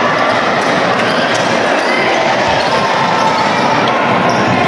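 A basketball bouncing on the court during play, against a steady din of voices.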